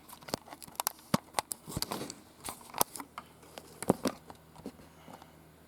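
Rubik's cube being turned by hand: a quick, irregular run of sharp plastic clicks as the layers snap round, which thins out and stops near the end.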